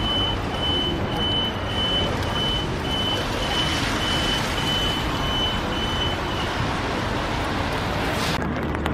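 A vehicle's reversing alarm beeping at a steady single high pitch, about twice a second, over steady street traffic noise. The beeping stops about two-thirds of the way through.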